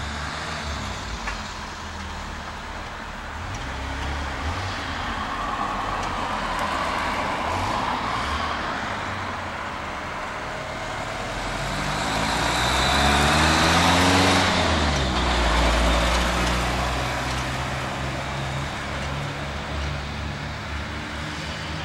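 Road traffic: motor vehicles driving along the street, with one passing close about two thirds of the way through, its engine note getting louder and then dropping in pitch as it goes by.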